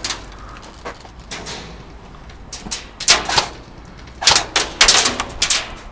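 Airsoft rifle firing in several short bursts of rapid, rattling clicks, the longest bursts a little after halfway and near the end.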